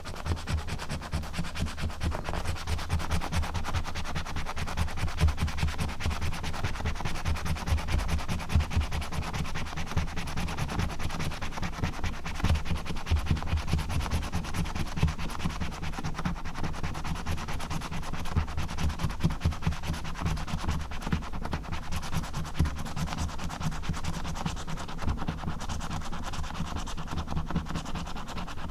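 Scratch card being scratched close to the microphone: a continuous run of rapid scratching strokes scraping off the card's coating.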